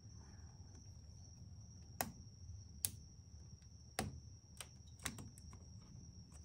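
A few sharp clicks and light knocks of tools and parts being handled around the engine, spaced irregularly about a second apart, over a faint steady high-pitched whine.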